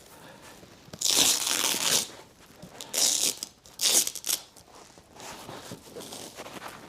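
Fabric loose cover being pulled and dragged off an armchair: three loud rustling, ripping swishes about one, three and four seconds in, with softer rustling of cloth between them.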